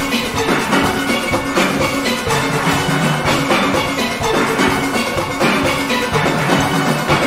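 A steel orchestra playing: many steelpans sounding chords and melody together over drum-kit and percussion accompaniment.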